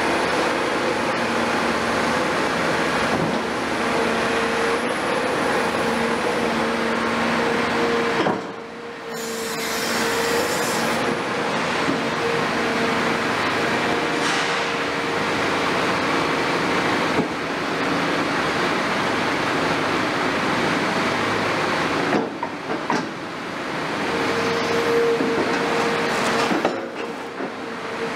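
Demolition excavator's diesel engine and hydraulics running steadily under load, with a steady whine over the engine noise. The noise drops briefly about nine seconds in, and again around twenty-three and twenty-seven seconds.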